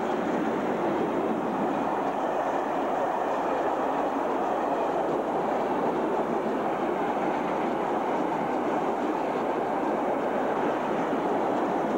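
Freight train of flat car-transporter wagons loaded with vans rolling past at close range: a steady, loud noise of steel wheels running on the rails.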